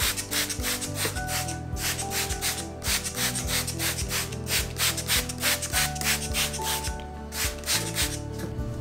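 Hand-trigger spray bottle misting water in quick repeated squirts, several a second, with a short pause near the end. Background music plays underneath.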